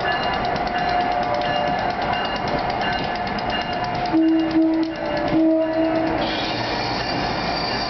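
An Amtrak Northeast Regional train led by an ASEA AEM7 electric locomotive rolls past, with steady running noise and a thin steady whine. A few short tones sound about halfway through, and a brighter high hiss comes in near the end.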